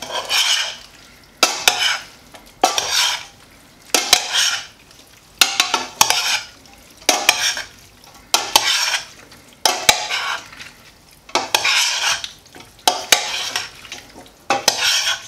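A metal spoon tossing a sauce-dressed salad in a stainless steel pot. It makes a run of about ten wet mixing strokes, roughly one every second and a half, each starting with a clink of the spoon against the pot.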